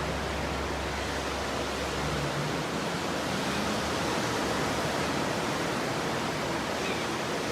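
Steady rushing wash of ocean surf, with a low rumble underneath that drops away about two seconds in.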